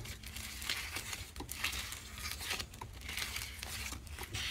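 Hands pulling and tearing apart a lump of green slime dotted with white beads, giving soft scattered crackling and tearing sounds.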